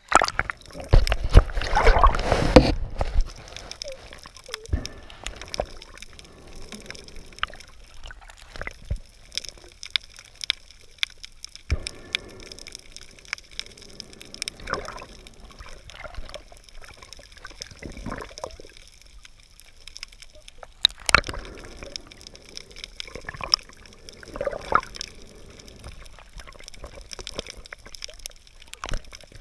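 Water sloshing and gurgling around a camera at and just below the sea surface. There is a louder splashing rush about a second in, then scattered small clicks and knocks.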